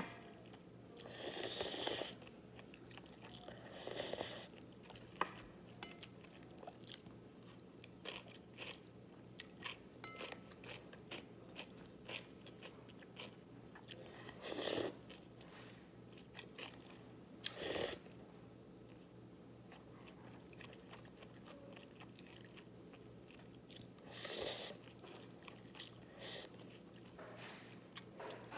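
A person eating naengmyeon (Korean cold noodles) with cucumber at close range: a run of small crunching and chewing clicks, broken by about five louder, longer noisy bursts.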